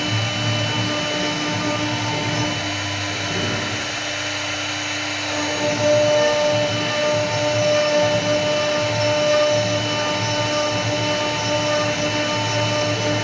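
CNC wood router running, its spindle giving a steady whine over the machine noise. It grows a little louder about six seconds in, where a new tone joins.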